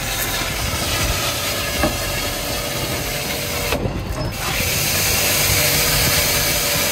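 Rushing water, a steady hiss, as a solar water heater's tank is flushed of murky, alum-laden water. The hiss thins briefly about four seconds in.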